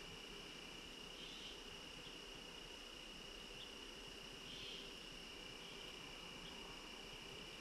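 Faint, steady chorus of crickets: one continuous high trill, with two brief swells of louder chirping about a second and about four and a half seconds in.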